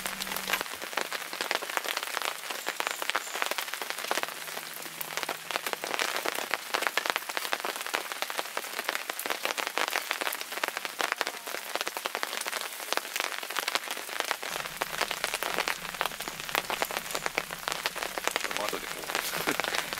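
Steady rain falling, a dense, irregular patter of drops.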